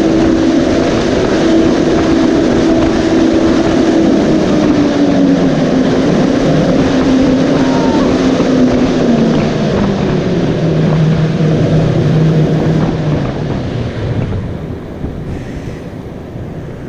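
Large propeller fan of a typhoon-simulation booth blowing a strong gale, with wind rushing over the microphone; its humming blade tone falls steadily in pitch over several seconds and the rush fades near the end as the fan winds down.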